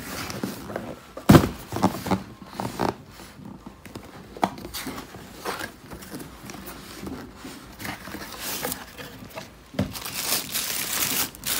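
Cardboard shoe box being handled and its lid lifted off: scattered knocks and scrapes, the loudest a sharp knock about a second in. Tissue paper inside crinkles and rustles near the end.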